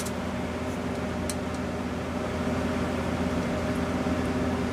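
Steady mechanical hum of shop equipment running, with a faint click about a second in as a telescoping gauge is handled.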